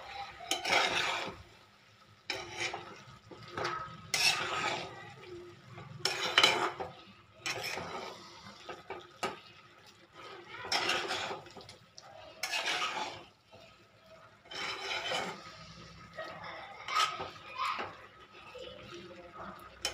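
A metal spoon stirring and scraping diced cooked pumpkin around a frying pan, in irregular strokes every second or two with short pauses, to mix in the garam masala added at the end of cooking.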